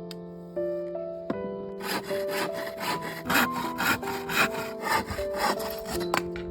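Hand saw cutting through wood in quick, even back-and-forth strokes, starting about two seconds in, over soft background music.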